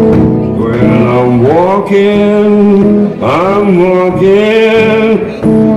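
Solo Delta blues: a man singing long held notes that swoop up into pitch, over a metal-bodied resonator guitar.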